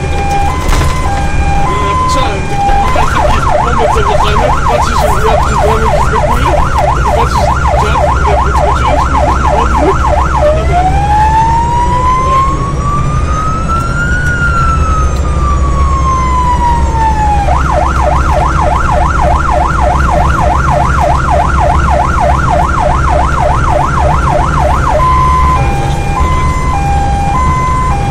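Volunteer fire brigade vehicle's electronic siren cycling through its tones: a two-tone hi-lo, then a fast yelp, one slow wail rising and falling, the fast yelp again, and the hi-lo once more near the end. The vehicle's engine makes a steady low rumble underneath.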